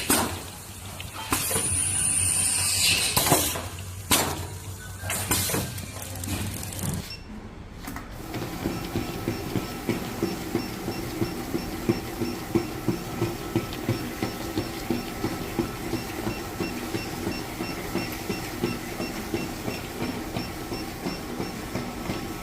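Packing machinery at work: several loud hissing stretches of air, then after a short break a steady machine running with a regular clicking rhythm, about two clicks a second.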